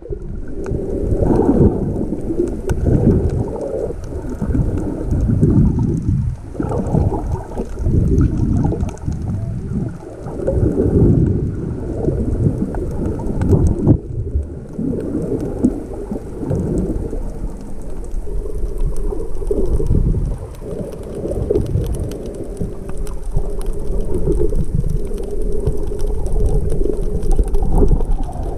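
Underwater water noise on a submerged camera: a muffled low rumble and sloshing that swells and fades in irregular surges.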